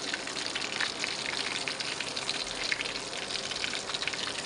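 Whole fish deep-frying in a wok full of hot oil: a steady, dense crackle and sizzle of popping bubbles.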